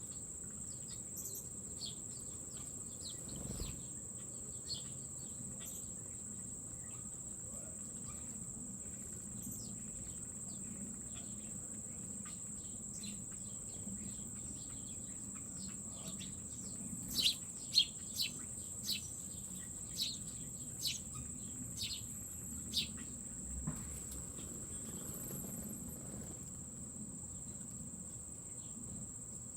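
Insects keep up a steady, high, unbroken trill. Over it, birds give short chirps, with a run of about eight louder, sharp chirps a little past the middle.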